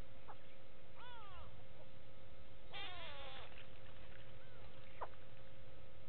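Grey go-away birds calling with downward-sliding calls: one about a second in, then a louder burst of several overlapping calls just before the middle, and a short one near the end. A steady faint hum runs underneath.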